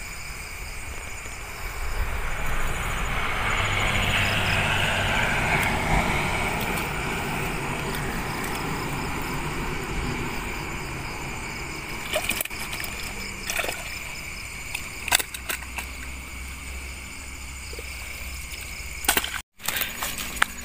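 Water sloshing and trickling around a net bag being worked in shallow river water, swelling for several seconds and then easing, over steady insect chirping. A few sharp handling clicks and knocks come in the second half.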